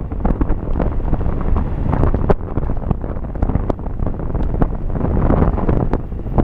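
Wind buffeting the microphone of a moving camera: a loud, continuous rumble with many small clicks and knocks through it.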